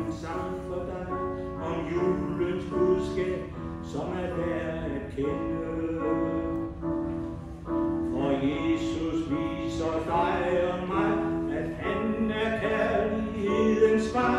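Small mixed choir singing a Christmas song with keyboard accompaniment, a man's voice leading through a microphone.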